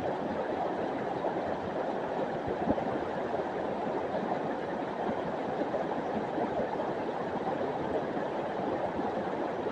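River water rushing over rocks in a steady, unbroken rush.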